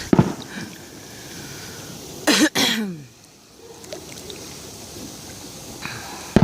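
Two sharp firework bangs, one just after the start and one near the end, with a cough about two and a half seconds in and a steady hiss between.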